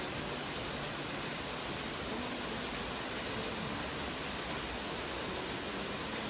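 Steady rushing water from a mountain stream or cascade, an even, unbroken hiss.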